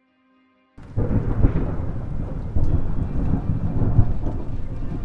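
Thunder rumbling over rain, starting suddenly about a second in and swelling several times.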